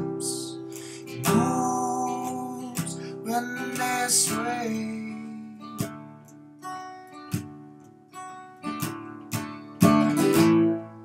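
Steel-string acoustic guitar strummed and picked in an unhurried instrumental passage, its chords ringing between strokes, with a louder strum near the end.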